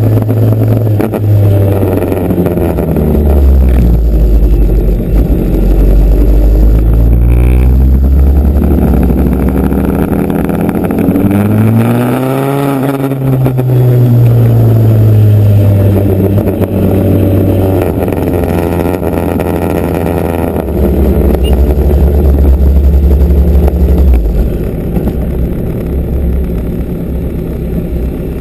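Motorcycle engine running under way, its note rising and falling with the throttle. It climbs to its highest pitch about halfway through, then falls back.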